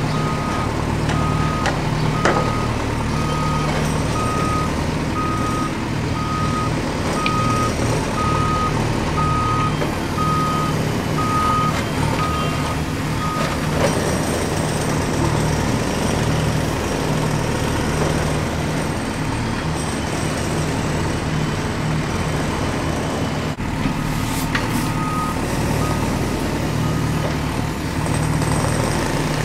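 Steady low heavy-machine engine rumble with a warning beeper. The beeper sounds about once a second, falls silent about halfway through, and beeps a few more times near the end.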